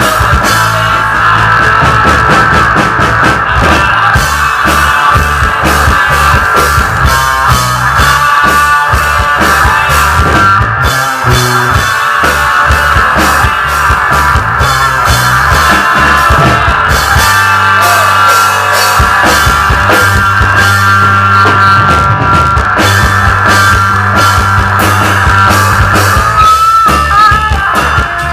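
Live rock band playing loudly, with distorted electric guitar, bass and drum kit in an instrumental passage.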